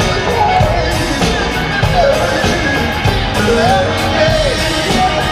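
Live rock band playing at full volume with a steady beat, and gliding vocal lines over the top.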